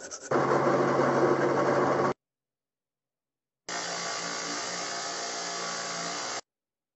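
A hand file's last strokes on steel, then a loud power tool running steadily for about two seconds before it cuts off. After a silent gap, a bench grinder's wheel runs steadily as a steel lock part is held against it.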